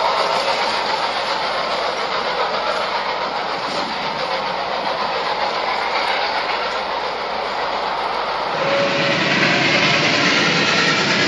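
A train rolling along the rails with wheel clatter. About nine seconds in, the sound changes abruptly to a lower, steadier running noise.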